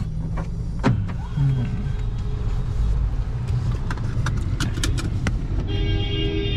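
Low rumble of a car pulling away and driving through busy city traffic, heard from inside the cabin, with scattered clicks. Near the end a vehicle horn sounds steadily for about two seconds.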